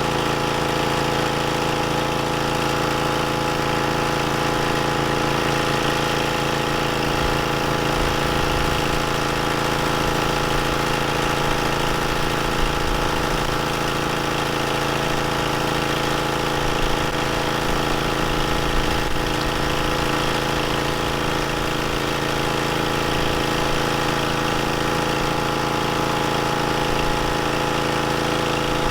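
Ryobi pressure washer running steadily while driving a surface cleaner: an even, unbroken mechanical drone with a hiss of water spray over it.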